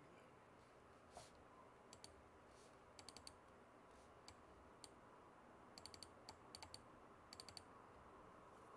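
Near silence: faint room tone with scattered soft clicks, some single and some in quick clusters of three or four.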